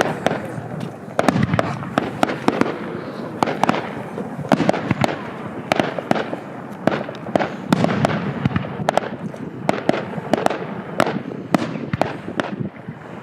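Fireworks going off: a dense, unbroken run of sharp bangs and crackling, several reports a second.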